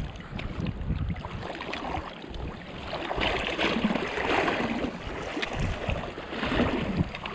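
Flowing river water, with wind gusting across the microphone in uneven low rumbles.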